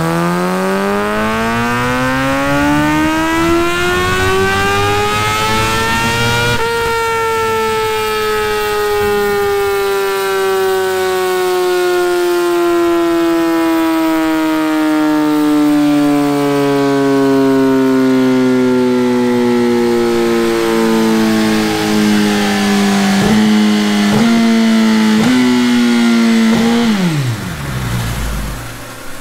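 2017 Suzuki GSX-R1000 inline-four with an Akrapovič Evolution exhaust, on a chassis dyno with a freshly flashed ECU: the revs climb steeply for about six seconds in a full-throttle pull, then the pitch falls slowly for about twenty seconds as it winds down, with a few small jumps, before dropping away sharply near the end.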